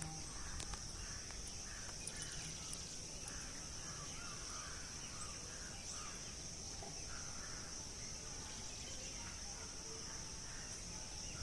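Steady, unbroken high-pitched drone of an insect chorus, with scattered faint bird calls and a low rumble of wind or background noise underneath.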